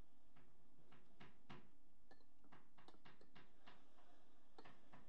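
Boxing gloves landing and boxers' feet shuffling on the ring canvas: about a dozen irregular sharp slaps and thuds, the strongest about a second in and near the end.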